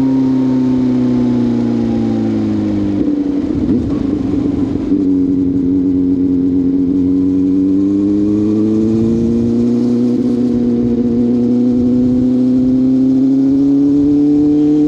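CFMoto 500SR Voom's parallel-twin engine through an SC Project carbon slip-on exhaust, its note falling over the first few seconds, going rough and uneven for a couple of seconds, then steadying and slowly rising again.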